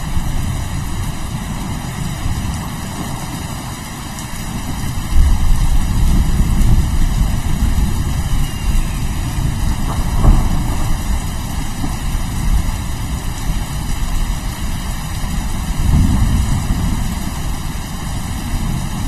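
Steady rain with low rolling thunder, the rumble swelling loudly about five seconds in and building again near the end.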